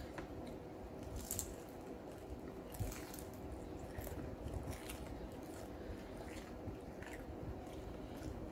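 Close-up eating sounds: biting into a shrimp egg roll and chewing it, with crisp crunches every second or so.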